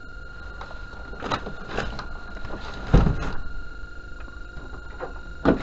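A few scattered knocks and bumps, the loudest a thump about three seconds in, over a faint steady high whine.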